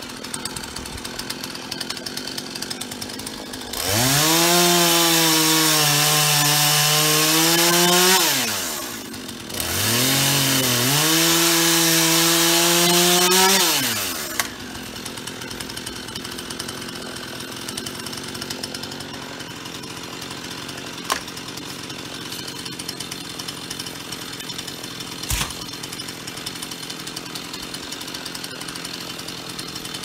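Chainsaw run up to full throttle twice, each burst about four to five seconds long, its pitch rising as it speeds up and falling as it drops back, with a short gap between them. Afterwards only a much quieter steady background, with a couple of sharp clicks.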